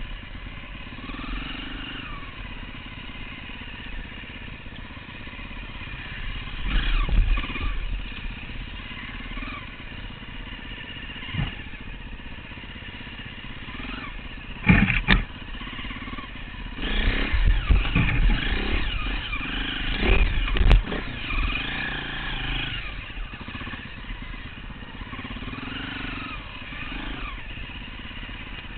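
Dirt bike engine revving up and down in constant changes of throttle while riding off-road, with the bike's frame and parts rattling over rough ground. A few loud knocks come a little past halfway and again soon after.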